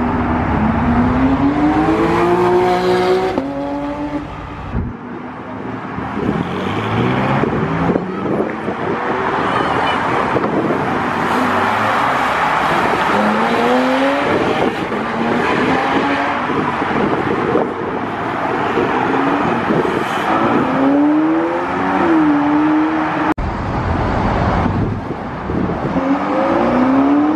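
Supercars accelerating hard away one after another, each engine's pitch rising through the revs and dropping back at the upshifts, over and over. A sharp click is heard about 23 seconds in.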